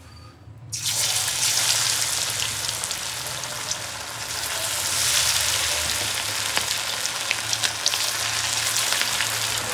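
Battered chicken pakoras deep-frying in hot oil: a steady sizzle full of small crackles and pops, starting abruptly under a second in.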